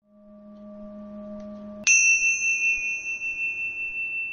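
Logo-intro sound effect: a low steady hum swells in for nearly two seconds, then breaks off into a single bright, high bell-like ding that rings on and slowly fades.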